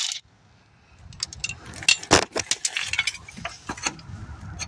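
Irregular run of sharp metallic clinks and clicks from hand tools and fasteners being worked on the compressor mounting, starting about a second in.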